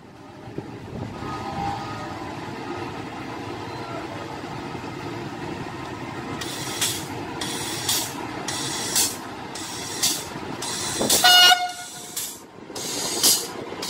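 A train going by: a steady rumble builds, then sharp clatters of the wheels come about once a second, and a short horn blast sounds about eleven seconds in, the loudest moment.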